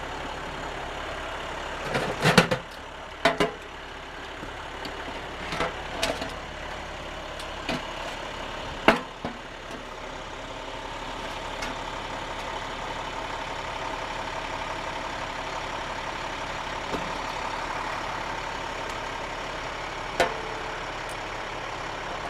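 Sewer vacuum truck's engine idling steadily, with sharp metal clanks from the suction tube sections being handled and knocked into place, most of them in the first half. A steady whine joins about halfway through.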